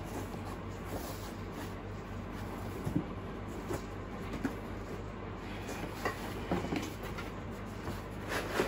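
Cardboard shipping box being handled as its packed contents are pulled out: scattered light scrapes, rustles and knocks of cardboard against cardboard, over a faint steady low hum.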